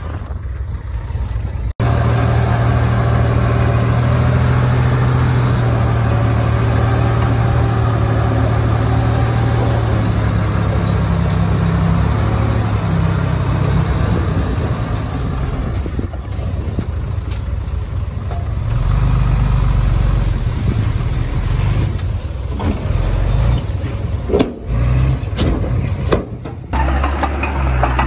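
Bulldozer's heavy diesel engine running at work, its low hum shifting in pitch and level. The sound breaks off abruptly about two seconds in and again a few times near the end.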